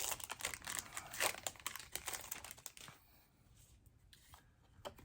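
Foil wrapper of a Pokémon trading card booster pack crinkling and tearing as it is opened by hand. The dense crackling stops about three seconds in, leaving a faint tick or two.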